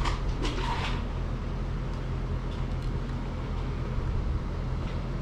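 Steady low mechanical hum, like a motor running, with a few brief rustles in the first second.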